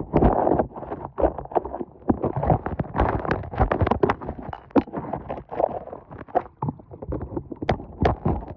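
Muffled underwater sound picked up by a phone sunk in the sea: water sloshing and churning, with many irregular knocks and clicks.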